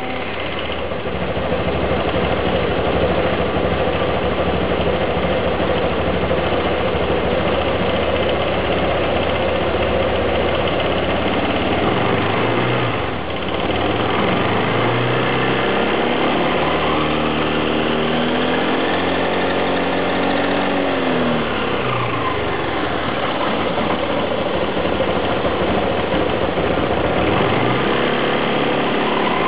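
Nikita 300i scooter's engine and drivetrain running at a steady idle, then slowly revved up and back down, and rising again near the end. This is the abnormal noise from the gear case (final-drive gearbox) that the owner is showing.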